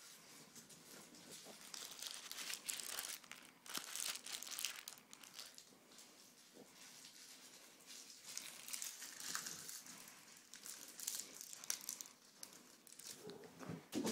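Irregular spells of crinkling and rustling, coming in clusters of short rustles a second or two long, from crinkly material being handled during a cat's game of fetch on a bed.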